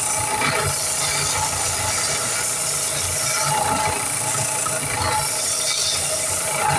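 Power sander running steadily while a wooden knife handle is ground to shape. A rasping swell comes about every second and a half as the handle is pressed against the abrasive.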